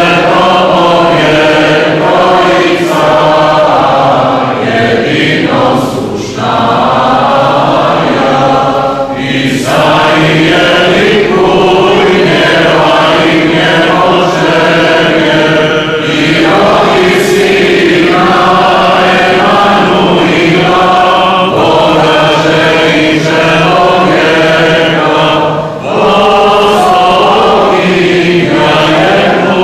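Several voices singing Orthodox church chant together, a sustained hymn with brief breaks between phrases.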